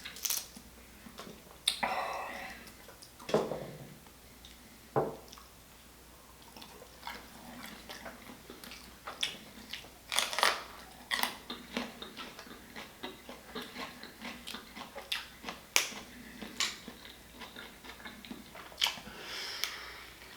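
A person chewing and smacking on a mouthful of seafood: irregular wet smacks and sharp clicks.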